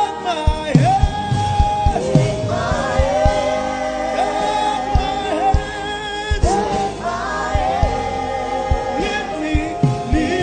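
Gospel worship music: voices holding long, wavering notes over a band, with drum hits throughout.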